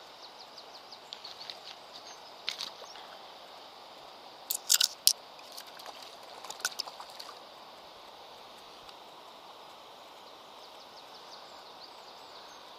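Steady rushing of a shallow river, with a run of light ticks in the first two seconds and several sharp splashes between about two and seven seconds in, as a trout is handled in the water and released; the fish is undersized.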